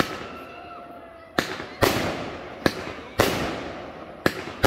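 Aerial firework shells bursting in quick succession: about six sharp bangs, unevenly spaced, each trailing into a rolling echo that fades over about a second.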